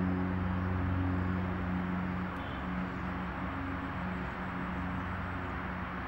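Steady outdoor rushing noise of distant traffic, with the low hum of a vehicle engine that fades away about two seconds in.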